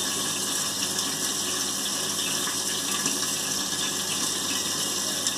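Steady rushing hiss of a running water tap.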